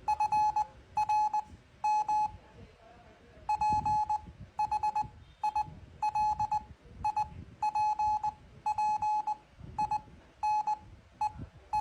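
Morse code (CW) tone, a single steady beep keyed on and off slowly at about 5 words per minute: short dits and longer dahs with clear spaces between them.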